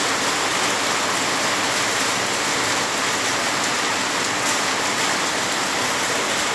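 Heavy rain pouring steadily on roofs and pavement, a dense, even hiss of falling drops.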